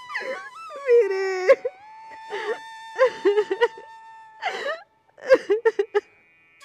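A woman crying, whimpering and sobbing in short broken bursts, over soft background flute music.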